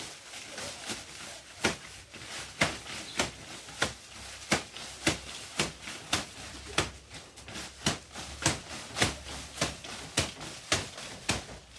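Panga (machete) chopping at a sugarcane stalk: a steady run of sharp strikes, nearly two a second, starting about a second and a half in.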